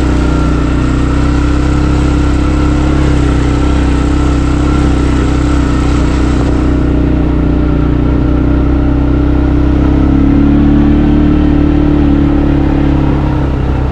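Vehicle engine running steadily while driving along a trail, its note rising slightly about two-thirds of the way through.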